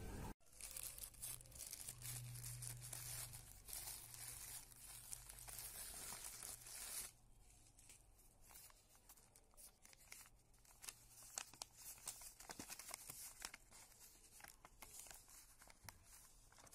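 A sheet of paper being handled and folded, rustling and crinkling, with a denser rustle for the first several seconds and scattered sharp crackles after that.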